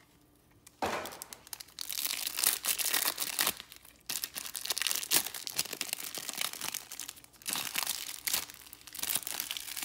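Clear plastic wrapper of a trading-card pack crinkling in bursts as it is pulled open and peeled off the stack of cards, starting about a second in.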